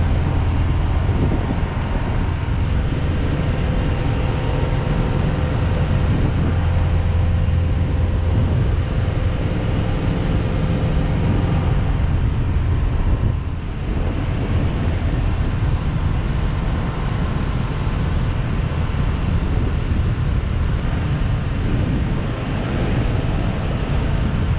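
A carburetted 350 V8 MerCruiser sterndrive running at a steady cruise of about 14 to 15 knots, a constant low engine drone. Wind buffets the microphone and water rushes past the hull, with a brief dip about halfway through.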